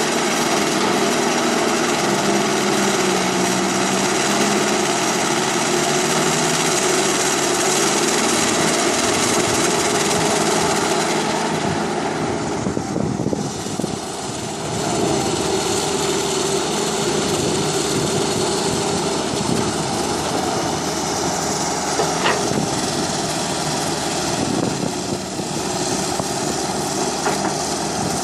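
Small electric motors and gearboxes of toy remote-control construction vehicles whirring steadily as they work, with a brief dip about halfway through.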